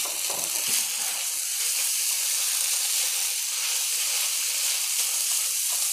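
Fried rice with mussels sizzling steadily in a hot nonstick wok while a spatula stirs and breaks up the rice.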